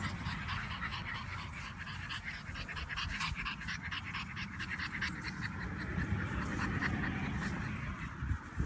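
French bulldog puppy panting quickly and rhythmically close by, over a low rumble.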